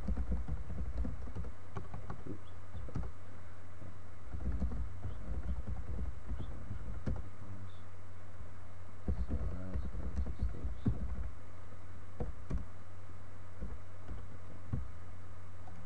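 Computer keyboard typing: irregular key clicks that come in bursts, over a steady low hum.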